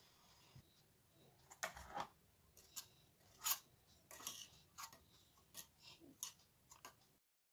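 Small metal spoon clinking and scraping against the side of a miniature stainless steel pot while stirring, a string of light irregular clicks that stops abruptly near the end.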